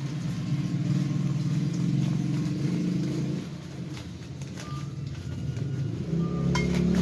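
A motor vehicle engine running steadily, its pitch shifting a little as it goes, with a few light clicks near the end.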